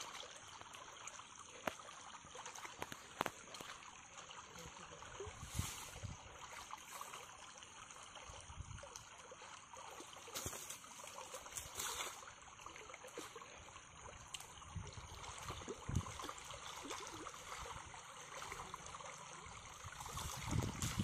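Faint trickling water with soft splashes as people wade barefoot through a shallow, grassy paddy-field channel. Near the end the sloshing grows louder as a bamboo fish trap is pushed down into the water.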